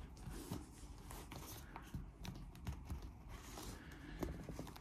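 Faint handling noises: fingers pressing and rubbing a car armrest cover, with scattered small clicks and rustles as the armrest is moved and lifted.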